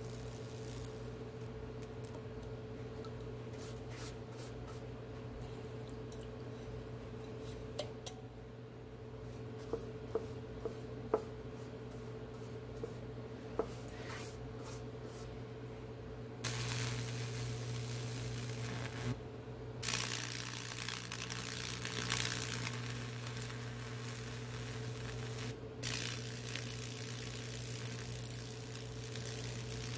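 High-voltage current arcing and burning through damp wood as it traces a Lichtenberg figure, a loud sizzling crackle over a low hum. The crackle starts suddenly a little past halfway and cuts out briefly twice. Before that there is only the steady low hum and a few sharp clicks.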